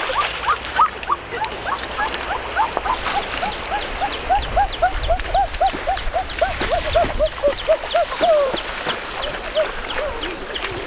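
A rapid series of short chirping animal calls, about three a second, each rising and falling in pitch, that thins out near the end. A steady high-pitched whine runs underneath.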